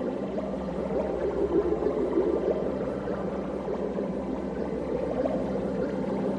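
Rainwater pouring and gurgling steadily, a continuous watery churn without pauses.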